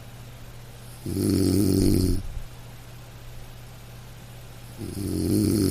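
Loud snoring: two long snores, each about a second, the first about a second in and the second near the end. A steady low hum continues between them.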